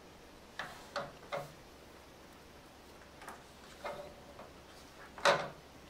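A printed circuit board being handled on a wooden tabletop while stick-on rubber feet are pressed onto it: a series of light clicks and taps, three in quick succession early, a few softer ones later, and one louder knock about five seconds in.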